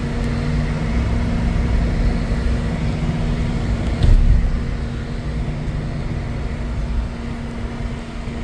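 Inside the cab of a 2026 Chevy Silverado on the move: steady road and engine rumble with the HVAC blower running on defrost, heard as a steady hum. A single thump about four seconds in.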